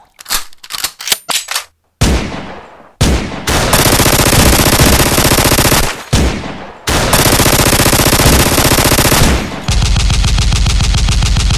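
Several sharp clicks, then from about two seconds in loud blasts of harsh rapid-fire noise like machine-gun fire. The blasts come in long bursts with brief breaks, turning to a finer, steadier rattle near the end.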